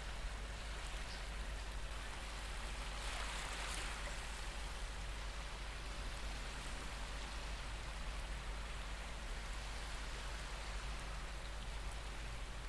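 Recorded ocean waves washing steadily, with one wave swelling a little louder about three seconds in.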